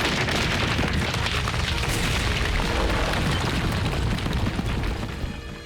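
Cartoon sound effect of a long, heavy rumbling crash, like a collapse or explosion. It dies away in the last second.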